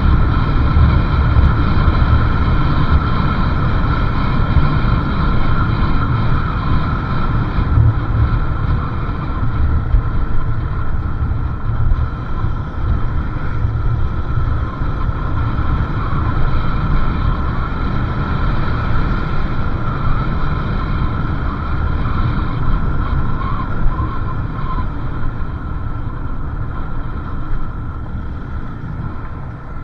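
Motorcycle riding along at steady speed: engine and road noise with heavy wind rumble on the microphone and a steady high whine above it.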